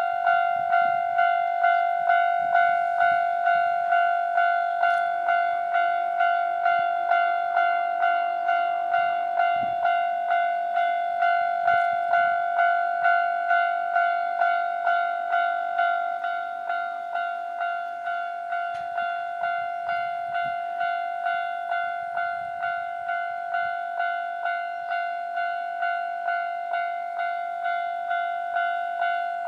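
Japanese railway level-crossing warning bell ringing steadily, a bright repeated ding about one and a half times a second, warning of an approaching train. It drops slightly in loudness about halfway through.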